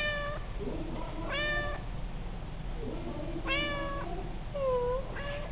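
Domestic cat meowing about five times in short, well-spaced calls, some level in pitch and some dipping then rising. The owner takes the meows for the cat repeating 'I love you' after her.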